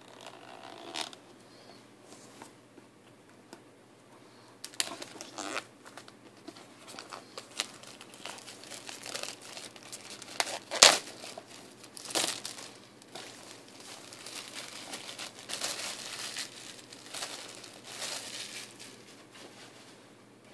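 Clear plastic shrink-wrap on an iPad mini box being slit and peeled off, crinkling and crackling in irregular bursts, with one sharp snap about eleven seconds in.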